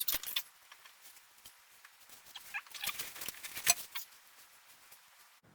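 Handling noise as a grinding guide is laid on the steel sword blank and lined up: light scrapes, clicks and short squeaks, busiest around the start and in the middle, with one sharp click about three and a half seconds in.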